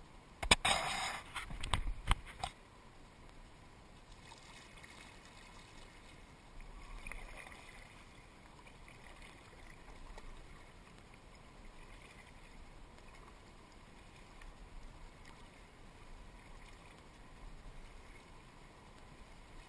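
A quick cluster of sharp knocks and clatters in the first couple of seconds. Then kayak paddle strokes dip and swish faintly about every two seconds over a low trickle of creek water.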